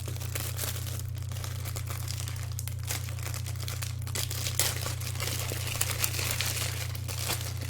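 Plastic packaging crinkling and crackling as a book is handled and unwrapped, with irregular sharp crackles, a few louder ones past the middle. A steady low hum runs underneath.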